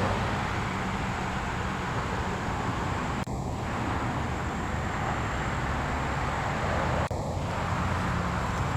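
Steady outdoor background rumble: a low hum under a broad hiss, cutting out briefly twice.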